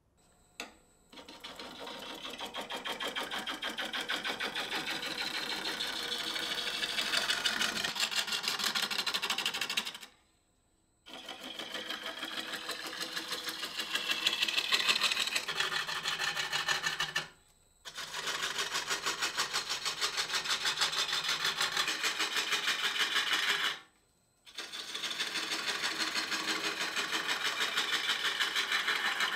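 A turning gouge cutting a spinning spalted maple blank on a Laguna Revo 1836 wood lathe: a rapid, even ticking chatter as the tool bites the rough, out-of-round blank, with shifting higher tones as the cut changes. It cuts out briefly three times.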